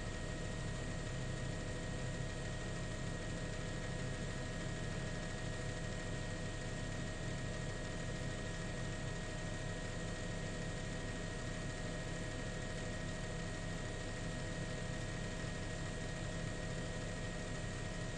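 Steady drone of a helicopter's engine and rotors heard from inside the aircraft, with several steady whining tones over a low rumble that does not change.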